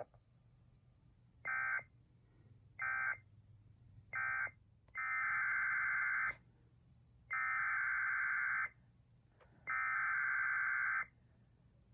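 Emergency Alert System SAME digital data bursts: three short end-of-message bursts about a second and a quarter apart, then three longer header bursts of about a second and a half each, announcing the next alert.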